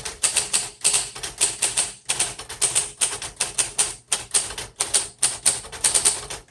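Rapid typing on a 1938 Royal Model O portable manual typewriter: a quick, fairly even stream of sharp key and typebar strikes with brief pauses between words.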